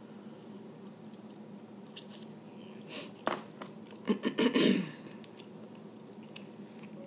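Close-up chewing and wet mouth sounds of someone eating seasoned crab-leg meat, with a few sharp clicks near the middle. A short run of loud, wet smacking comes about four seconds in.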